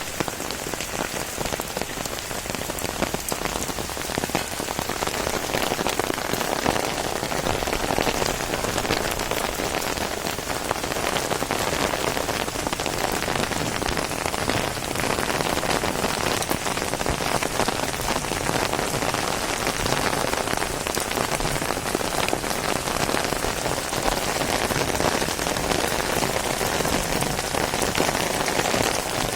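Heavy rain falling steadily on a surface, a dense even hiss with many separate drop hits.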